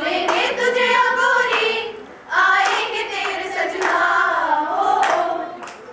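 A group of young women singing together, with hand claps keeping time. The singing breaks off briefly about two seconds in, then goes on and fades near the end.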